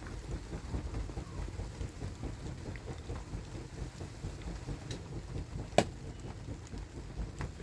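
Steady rain during a thunderstorm, with a continuous low rumble underneath. A single sharp tap stands out about three-quarters of the way through.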